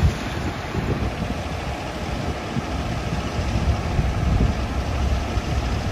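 Diesel engine of a semi-truck pulling an end-dump trailer, running steadily at idle.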